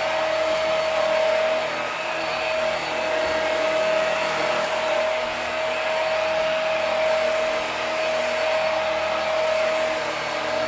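Hoover Max Life Pro Pet Swivel upright vacuum running steadily on carpet while picking up kitty litter. Its motor gives a constant high whine over the rush of airflow.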